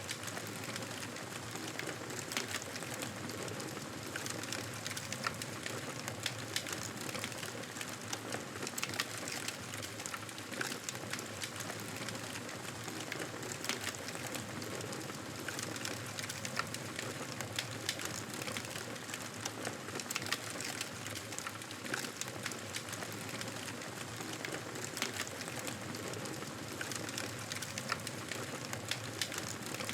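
Wood fire crackling in a fireplace: a steady hiss of burning with frequent small, sharp pops and snaps, unevenly spaced.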